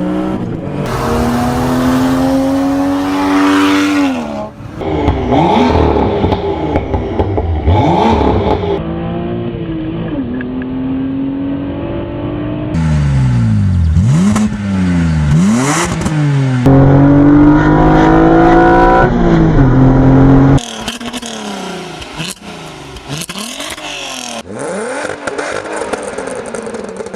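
A run of short clips of different car engines, each revved hard so the pitch sweeps up and falls back several times, with an abrupt cut to a new engine every three to four seconds.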